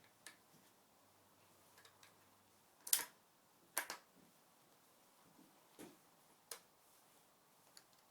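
Scattered sharp clicks and knocks, each short with a brief decay. The loudest two come about three and four seconds in, with fainter ones before and after.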